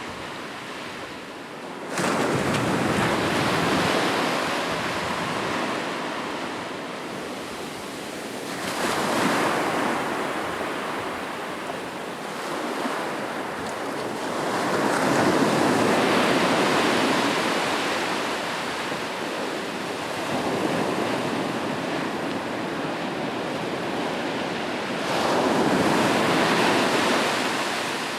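Ocean waves breaking on a beach: a continuous rush of surf that swells and fades, with about five waves surging in, the first sharply about two seconds in and another near the end.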